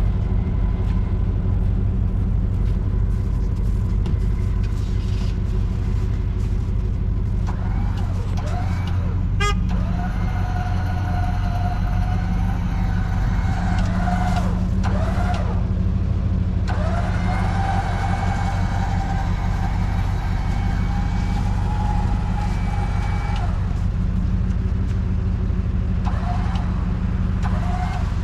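Motor vehicle engine running steadily, with a higher whine that comes in three times, sliding up as it starts and down as it stops.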